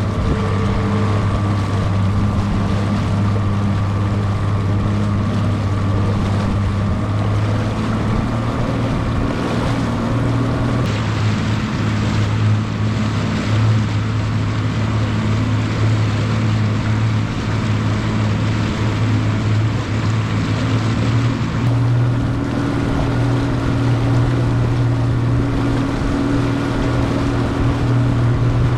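Bass boat's outboard motor running steadily at speed, with wind and water rush. The engine note rises slightly about three-quarters of the way through.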